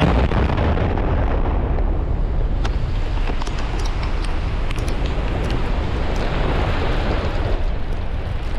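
Loud continuous rumble of a large power-station structure collapsing in an explosive demolition, with a few scattered sharp cracks.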